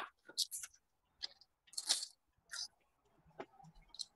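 Faint, irregular short rustles and clicks of hands handling something close to the microphone, a dozen or so separate crackles.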